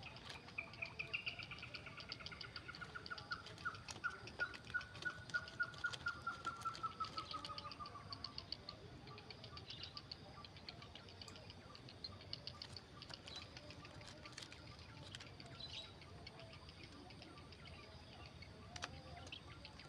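Grey heron nestlings making rapid clicking begging chatter: a fast series of ticks that slowly falls in pitch over several seconds and then fades, with fainter, higher chattering carrying on after it.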